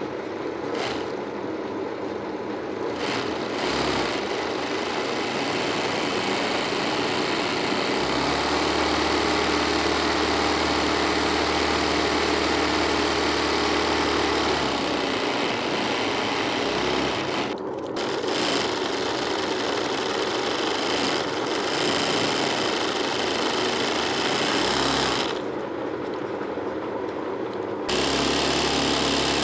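Electric sewing machine running fast, stitching freehand embroidery into cloth stretched in a hoop. It stops for a moment a little past halfway, runs a little quieter near the end, then picks up again.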